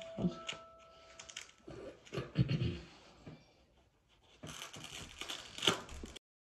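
Scratchy rustling of a post-surgery abdominal binder's fabric being handled and pulled loose, in short bursts that grow denser and louder near the end.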